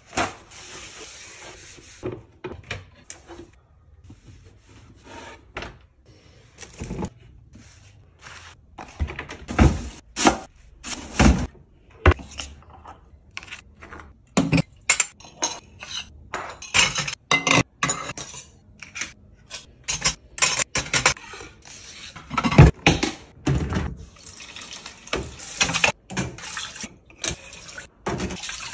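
Kitchen handling noise: an irregular string of knocks, clicks and clatters as cookware, a knife on a wooden cutting board and dishes and utensils are handled, louder from about nine seconds in.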